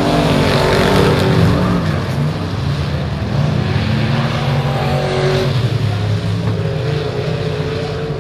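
Stock car engines racing on a dirt oval, with several cars running together and the engine note rising and falling as they go around. The sound is loudest in the first second or two and eases slightly after that.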